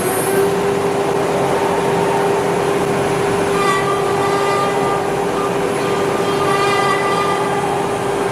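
CNC router's HSD automatic-tool-change spindle running at steady speed: a constant high hum over a rushing noise, with brief added ringing tones about four and seven seconds in.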